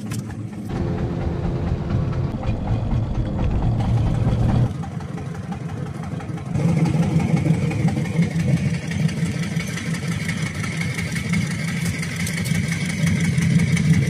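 Fishing boat's engine running steadily at idle, a low hum that drops a little for a couple of seconds in the middle and then comes back stronger.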